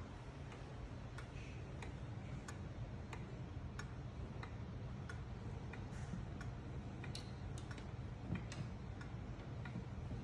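Antique 1882-patent Ansonia Queen Elizabeth wall clock's pendulum movement ticking steadily, about three ticks every two seconds.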